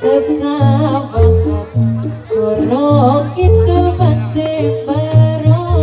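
Javanese jathilan dance music played live: a singer's wavering, ornamented melody over deep sustained bass notes that change about every half second.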